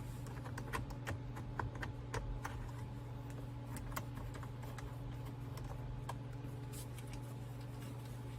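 Light, irregular clicking from a ratchet wrench tightening the Torx bolt that holds the steering-wheel airbag from the side; the clicks come several a second for the first few seconds, then thin out to a few scattered ones.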